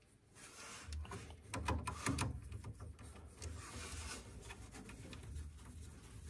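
Rubbing and scraping with a few sharper clicks around two seconds in, as a small hand driver engages and turns the screws that hold the print head of a Bambu Lab X1C 3D printer.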